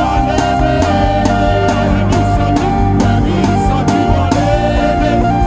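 Live worship band music with a steady beat, playing between sung lines of a praise chorus.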